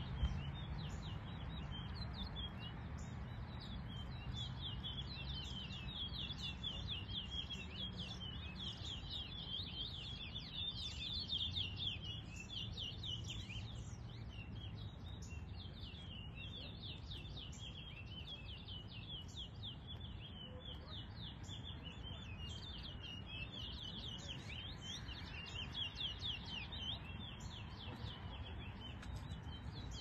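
Towa towa seed finches singing: fast, high, repeated chirping phrases that run on with hardly a break, over a low steady background rumble.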